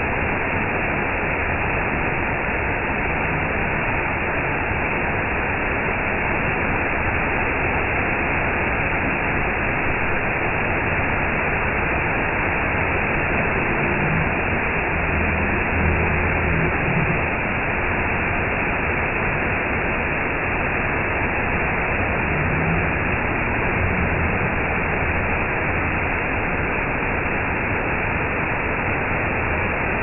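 Waterfall crashing onto rocks into a pool: a steady, unbroken rush of falling water.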